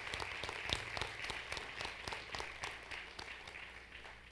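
Audience applauding, many hands clapping at once; the clapping thins and dies away over the last second or two.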